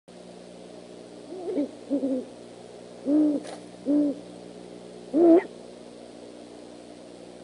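Great horned owl hooting: about five short, deep hoots over a few seconds, the last one rising in pitch.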